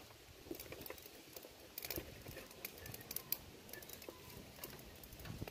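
Canh chua (sour fish soup) simmering in a metal wok: faint, scattered ticks and pops.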